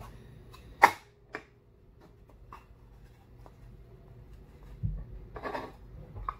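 Wooden nesting-doll pieces clicking and knocking as they are handled and pulled apart. A sharp click comes about a second in, with a smaller one just after. Near the end there is a dull knock, then a scraping rub and a few light clicks.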